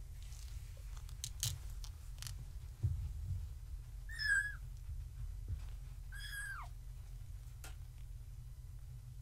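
Two high-pitched kitten mews about two seconds apart, the second longer and sliding down in pitch at its end, from three-week-old kittens; faint scattered taps and clicks around them.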